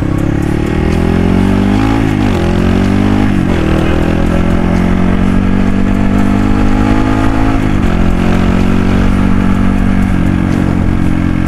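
Dirt bike engine accelerating under the rider, its pitch climbing in each gear and dropping sharply as it shifts up, about four times.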